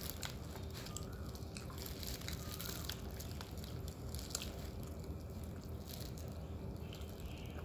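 Flaky roti prata being torn apart by hand on its paper wrapper: scattered small crackles and paper rustling over a faint steady hum.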